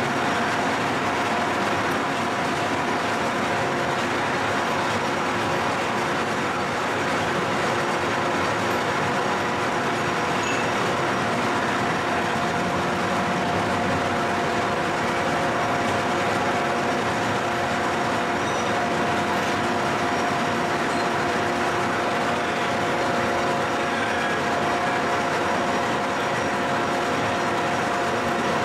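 Milling machine running steadily: an even mechanical noise with a steady whine of several held tones.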